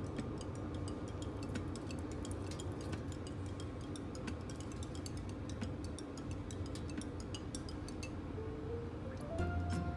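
Faint, irregular ticking clicks over a low steady hum. A few held musical notes come in near the end.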